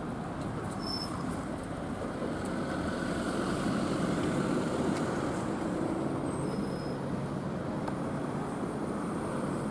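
Road traffic: a city bus drives past, followed by a car, their engines and tyres making a steady noise that swells slightly midway.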